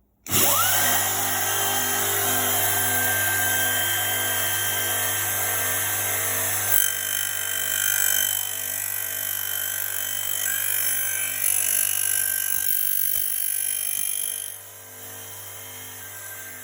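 Elumatec AF 222 end milling machine's motor starting with a quick rising whine and then running steadily at speed, the sound changing about seven seconds in. Near the end it drops to a much quieter running level.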